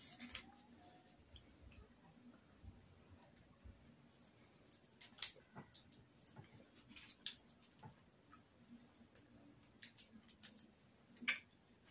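Faint, scattered clicks and crinkles of a fruit roll-up being unrolled and peeled off its paper backing.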